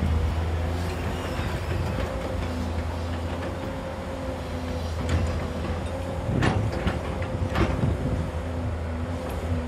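JCB tracked excavator's diesel engine running steadily under load, a low drone with a steady whine over it, as the arm lowers the bucket into the pit to dig. A few short knocks come in the middle and near the end.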